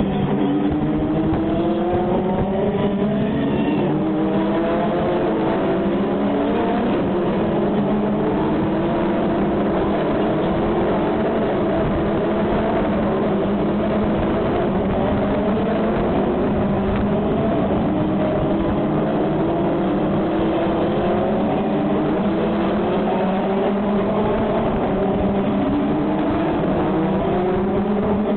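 Single-seater race cars running on the circuit, engine pitch climbing over and over as they accelerate and shift up through the gears, over a steady low engine drone.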